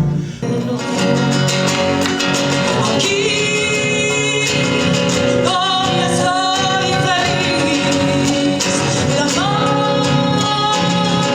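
Argentine folk music on acoustic guitars, an instrumental passage between sung verses, with long held melody notes that slide into pitch a few times.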